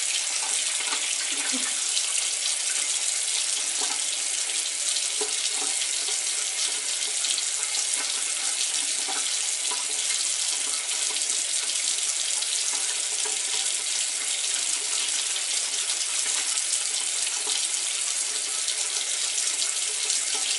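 A water tap running steadily into a sink, an even hiss with no breaks.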